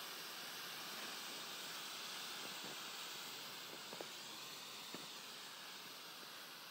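DM-11 pyrotechnic smoke pot burning, with a steady hiss of smoke streaming out of the canister and two faint ticks near the middle.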